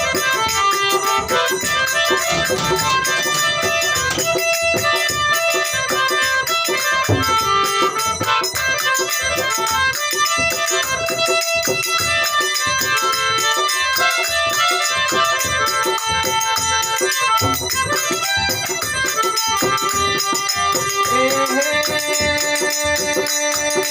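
Instrumental interlude of a Rajasthani folk bhajan: a melody line over a steady percussion rhythm, settling into long held notes near the end.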